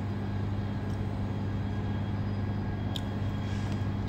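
A steady low hum from a machine running in the room, with one faint click about three seconds in.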